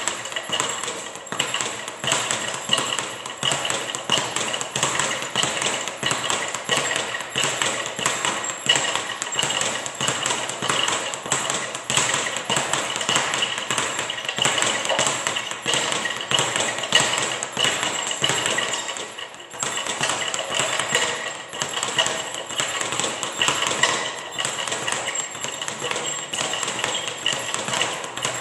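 Leather speed bag being punched continuously, rattling rapidly and steadily as it rebounds off its overhead platform, with a brief break about nineteen seconds in.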